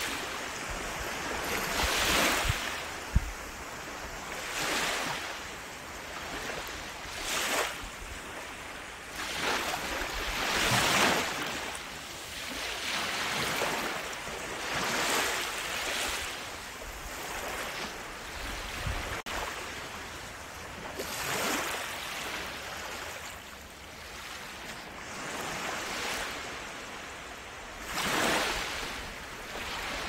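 Sea waves washing onto a shore, the surf swelling and falling back every few seconds, with one short sharp knock about three seconds in.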